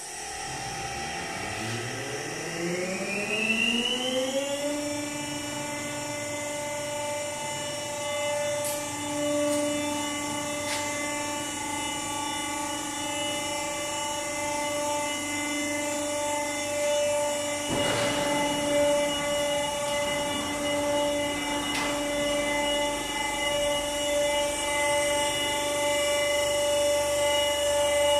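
Electric drive of an industrial pallet lift starting up: a whine rises in pitch over the first four seconds or so as the motor comes up to speed, then runs at a steady pitch while the lift travels. A few light knocks come through along the way.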